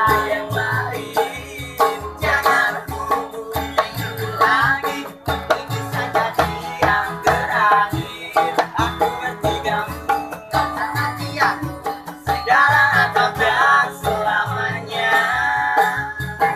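Street band playing live: acoustic guitars strummed, a homemade hand-played cylinder drum keeping a steady low beat, and men singing together.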